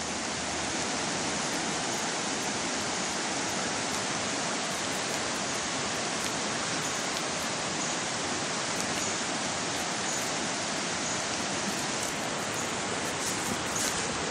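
Fast-flowing floodwater rushing past in a steady, unbroken wash of noise.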